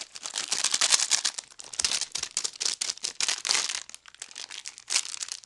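A dog mouthing and shaking a plastic candy bag, the plastic crinkling in quick irregular bursts, with a brief lull about four seconds in.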